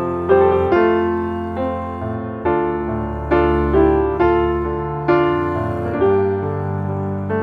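Background piano music: a slow, gentle piece, with a note or chord struck about every second and each one left to fade.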